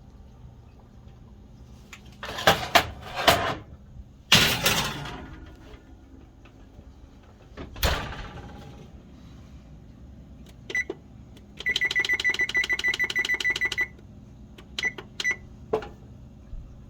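Clattering knocks of kitchen things being handled, then electronic beeping from a kitchen appliance: single keypad beeps, a fast run of beeps at about ten a second for roughly two seconds, and a couple more single beeps near the end.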